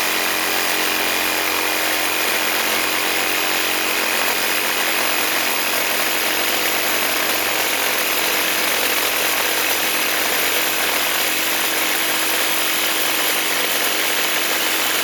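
Reciprocating saw (Sawzall) cutting through steel tubing, running continuously at full speed with a steady high whine over the cutting noise.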